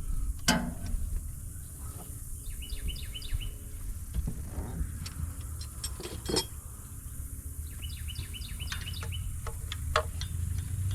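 A small bird singing two short phrases of quick repeated chirps, about five seconds apart, over a steady low rumble. A few sharp metallic clinks of hand tools are heard among them, the loudest near the start and a little past the middle.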